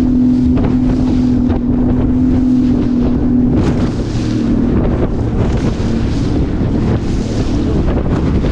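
Outboard motor on a 17-foot aluminum boat running through rough, choppy water, with heavy wind buffeting the microphone and waves splashing against the hull. The motor's steady drone becomes unsteady and wavering about three and a half seconds in.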